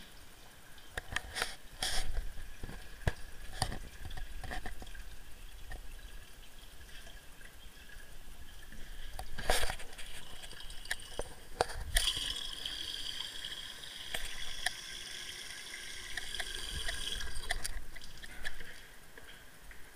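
Water running and trickling, louder for several seconds past the middle, with scattered knocks and clicks.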